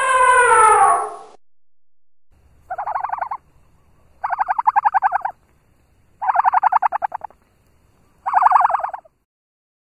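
An animal calling: one drawn-out call at the start, then four short, rapid, rattling calls about every two seconds.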